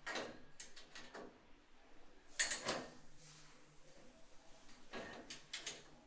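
Fishing rod blanks clattering and knocking against a metal hanging rack as they are hung, in a few separate bursts, the loudest about two and a half seconds in.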